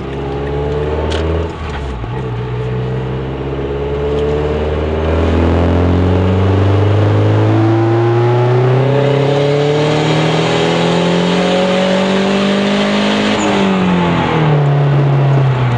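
A 2011 Mazdaspeed3's turbocharged 2.3-litre four-cylinder, fitted with a big aftermarket turbo that is not yet tuned for, makes a full-throttle pull in third gear. The engine note climbs steadily for about eleven seconds after a short break about a second and a half in. It then falls away as the throttle closes near the end.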